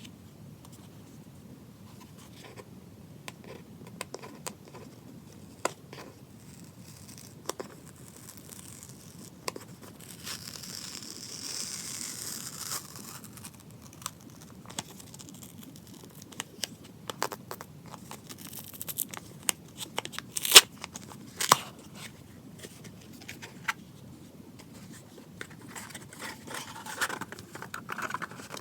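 Packaging being opened and handled by hand: scattered taps and clicks, a stretch of rustling or tearing a few seconds long about a third of the way in, and two loud sharp clicks about two-thirds through.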